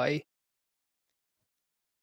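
A voice finishing its last word just after the start, then dead digital silence.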